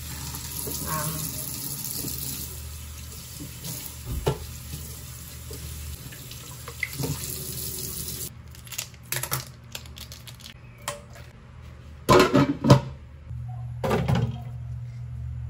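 Kitchen tap running steadily into a stainless steel sink, shut off about eight seconds in. Near the end come loud clanks of a cookware pot and its glass lid being handled.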